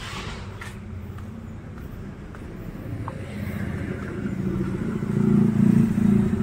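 A motor vehicle's engine running and growing steadily louder through the second half as it comes close along the road.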